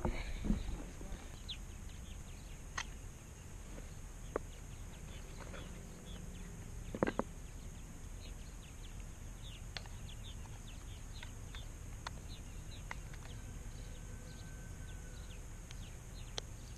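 Quiet outdoor ambience over a steady low background noise, with small birds chirping in short, scattered high notes and a few sharp clicks, the loudest a quick pair about seven seconds in.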